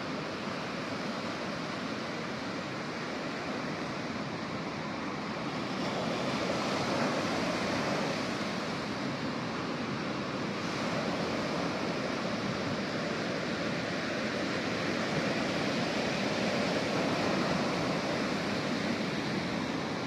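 Ocean surf breaking and washing up a beach, a steady rush that swells about six seconds in and again near the end.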